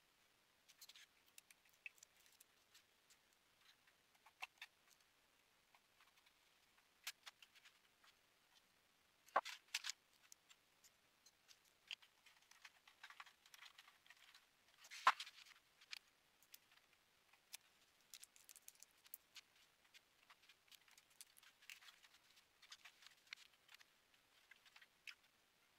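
Faint small clicks and rustles of hands handling cable connectors and plastic parts inside an opened Dell 4350 projector, with two sharper clicks, one about a third of the way in and one just past the middle.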